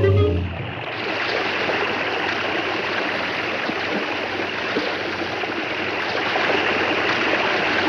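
Steady rush of a large waterfall, coming in as orchestral music fades out within the first second.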